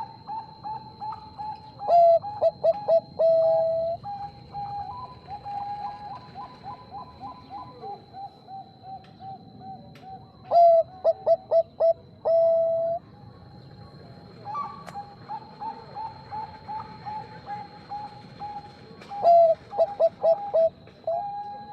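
Zebra dove (perkutut) singing: runs of quick soft notes each leading into a loud burst of bubbling coos, three phrases in all, about a second in, about ten seconds in and near the end. A thin steady high tone sounds throughout.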